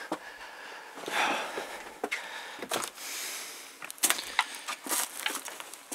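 Footsteps scrambling over loose rock and dry twigs and needles: irregular crunches and sharp snapping cracks, coming thicker in the second half.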